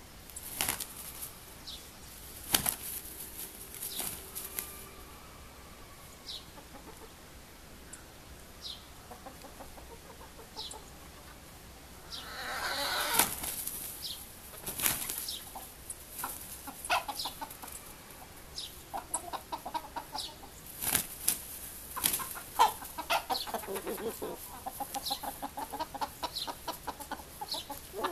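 A hen and young cockerels scuffling: repeated bursts of wing flapping, loudest in a flurry about twelve seconds in, with short high calls and, later on, rapid clucking from the birds.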